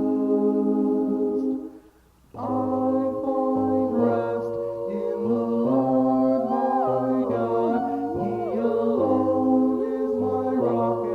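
Background music of sustained choir-like vocal chords that cuts out briefly about two seconds in, then comes back with voices sliding between notes.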